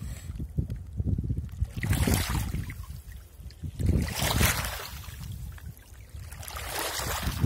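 Wind rumbling on the microphone with water washing or splashing in three swells about two and a half seconds apart.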